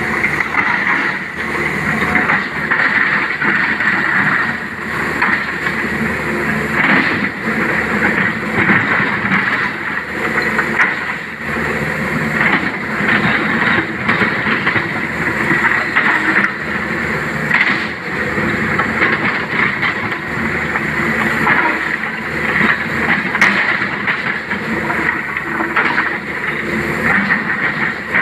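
Sany SY225C crawler excavator working in a pile of broken rock: the diesel engine and hydraulics run steadily with a constant high whine, while stones knock and scrape against the steel bucket many times.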